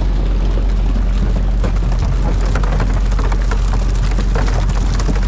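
Fishing boat's engine running steadily under a noisy patter of water, with scattered short knocks.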